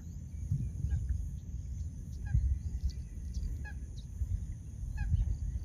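Outdoor ambience with a low, flickering rumble like wind on the microphone, faint scattered short bird chirps, and a steady high insect drone.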